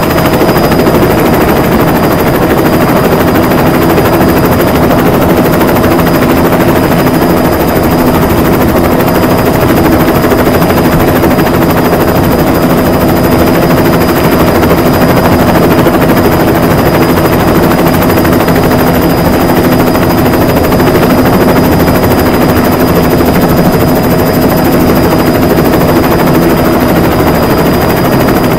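Diesel bus engine running steadily at cruising speed, with loud, even road noise and a steady engine hum throughout.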